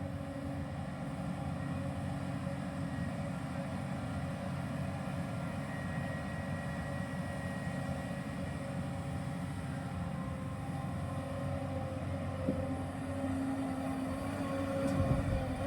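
Hyundai R215L SMART X Plus hydraulic excavator's diesel engine running steadily, with a brief knock about twelve seconds in.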